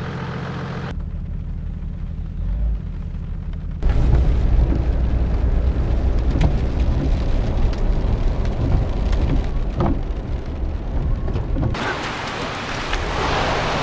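Jeep Wrangler being driven, a steady low engine and road rumble that gets much louder about four seconds in, with a few knocks. A hiss, typical of tyres on a wet road, comes up near the end.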